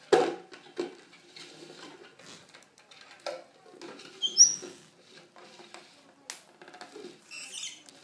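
Upturned clear plastic bowl knocking and scraping across a wooden floor as a rosy-faced lovebird pushes it and scuttles about under it. There is a sharp knock at the start, then irregular scuffing and bumping. The bird gives a few short, high chirps about four seconds in and again near the end.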